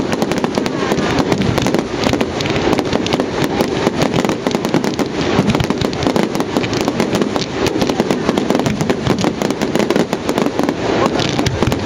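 Firework display going off in a dense, unbroken barrage of rapid crackles and bangs.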